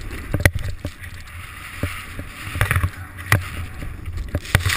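Snowboard sliding and scraping over wind-crusted snow, with wind buffeting the action camera's microphone and irregular sharp thumps and clicks as the board chatters over bumps.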